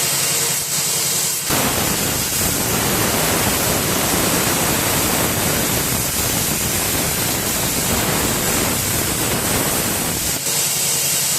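CNC plasma cutter: a steady air hiss, then from about a second and a half in a fuller, rough rasp as the plasma arc cuts. The arc stops near the end, leaving only the hiss of the air flow.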